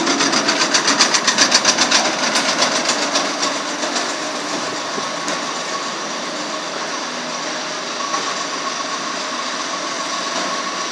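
Hammer-mill wood chipper running, with a rapid rattle of about seven pulses a second for the first three seconds or so, then steady running with a thin whine.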